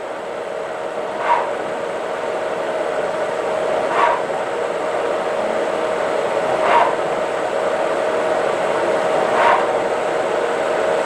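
CNC lathe running an automatic threading cycle: a steady whine from the spindle drive, with a short swish about every two and a half seconds, four times, as the tool makes each small threading pass.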